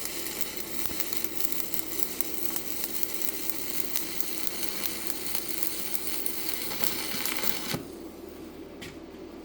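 Stick (SMAW) welding arc crackling steadily as a 7018 electrode burns in, cutting off suddenly near the end when the arc is broken.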